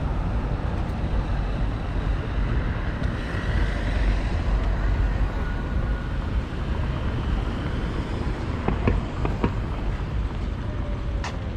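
Wind buffeting the microphone as a low rumble over a steady outdoor background hiss, with a few sharp clicks about nine seconds in and another near the end.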